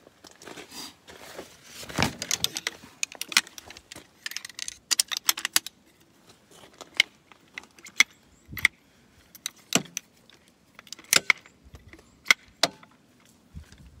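Shock-corded aluminium poles of a Helinox folding camp chair's frame clicking and clinking together as the frame is pulled out and unfolded, a string of sharp metallic clicks, some with a short ring, over rustling of the chair's fabric and stuff sack.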